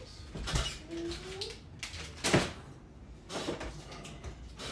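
Three sharp knocks or bangs of household things being handled, the loudest about halfway through, with a brief bit of voice after the first.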